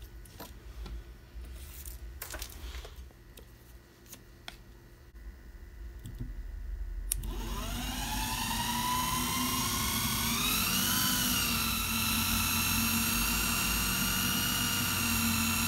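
Brushed DC motor of a small home-made bench drill, running off a supercapacitor bank through a DC-DC boost converter, starts about seven seconds in after a few light handling clicks. It winds up in pitch to a steady whine, with a brief rise and fall in speed around ten seconds in.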